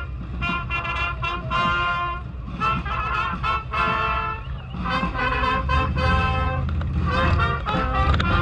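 Parade brass band playing: a run of held horn notes changing pitch every half second or so, over a steady low rumble.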